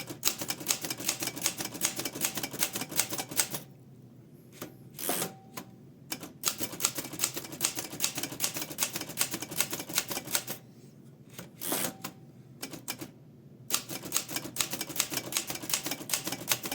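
1947 Remington De Luxe Model 5 manual typewriter being typed on, its keys all still working: quick runs of sharp keystrokes in three bursts, with a pause between bursts, each pause holding one heavier single clack.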